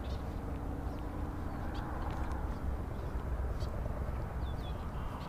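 Steady low outdoor rumble, with a few faint, short high chirps scattered through it.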